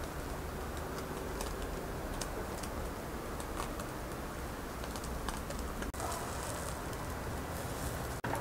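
Hot charcoal-grilled chicken and beef kebab sizzling and crackling on its skewer while being basted with sauce: a steady hiss with scattered small crackling clicks.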